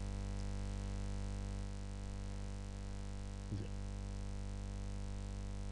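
Steady electrical mains hum and buzz, a stack of evenly spaced tones, from the recording chain. A short faint sound comes about three and a half seconds in.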